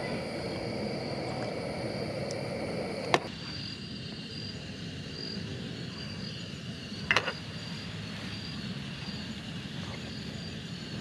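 Portable gas canister stove burning with a steady hiss, which stops suddenly with a click about three seconds in. After that, insects keep up a thin, pulsing high trill, and a short metal clink of cookware comes about seven seconds in.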